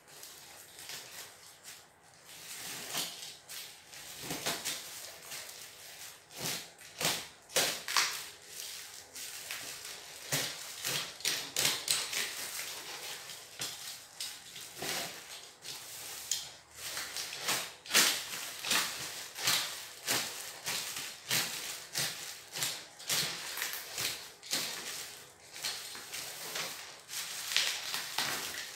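Packing tape being cut and pulled off a parcel and its black plastic wrapping being opened, in an irregular run of rips, crackles and rustles.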